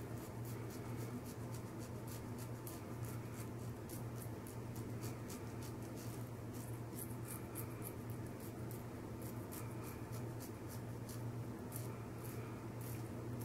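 Wolfman WR1-OC safety razor with a Polsilver Super Iridium blade scraping through lathered stubble on the upper lip in quick short strokes, several a second, over a steady low hum.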